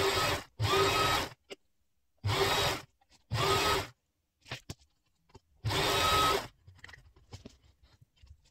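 Bernina Sport electric sewing machine stitching in five short bursts, each under a second, with near-quiet pauses between. Each burst starts with a brief rising whine as the motor speeds up. The machine is top-stitching crinoline braid onto a skirt hem.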